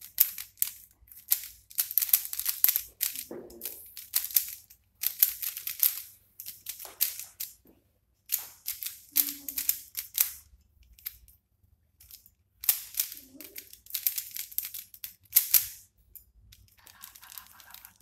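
3x3 Rubik's cube being turned fast by hand, its plastic layers clicking and clacking in quick flurries of turns with short pauses between them.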